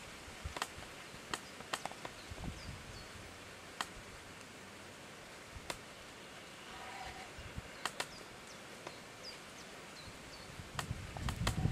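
Outdoor meadow ambience: a steady faint hiss with scattered sharp clicks at irregular moments and a few faint, short, high bird chirps.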